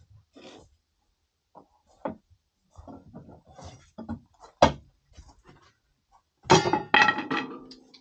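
Scattered knocks, taps and clinks of objects being handled, with a sharp knock about halfway through and a louder clatter that rings on near the end.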